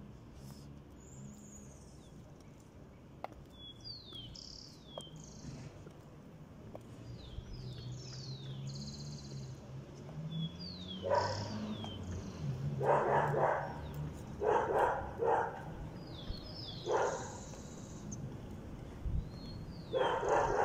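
A dog barking in short clusters through the second half, over high chirping birds and a low steady hum.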